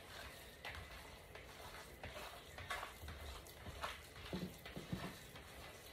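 Hands squeezing and kneading raw ground turkey mixed with oats and eggs in a bowl: faint, irregular wet squishes.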